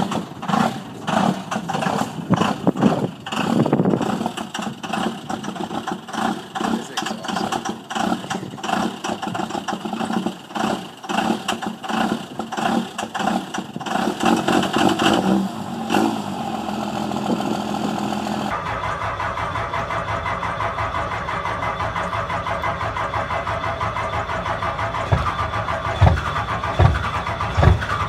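Dodge Ram's Cummins 5.9 L inline-six diesel running rough and choppy just after a cold start, its revs rising and falling unevenly. It then changes abruptly to another Cummins diesel pickup, fitted with twin exhaust stacks, cold starting, with loud heavy exhaust pulses near the end.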